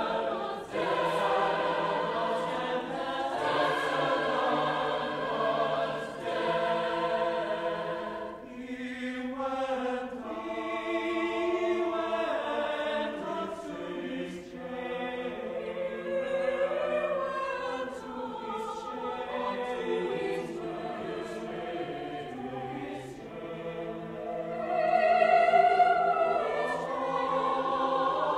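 Choir singing with orchestra in a sustained choral passage, the voices swelling to their loudest near the end.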